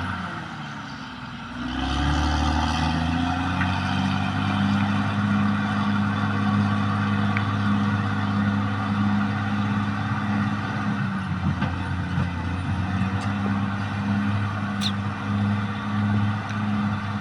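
Diesel engine of a Caterpillar D6R XL bulldozer running hard. Its pitch and loudness dip during the first second or two, then climb back and hold steady.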